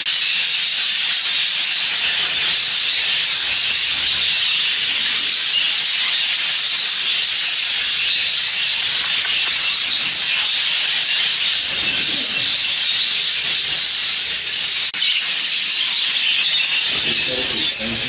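Many budgerigars chattering at once, a dense, steady wash of high chirps and warbles from a crowded bird room.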